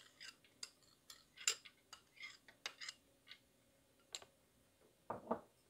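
Faint, scattered light clicks and taps of hands and small soaked ingredients against a plastic mixer-grinder jar, with two duller knocks about five seconds in.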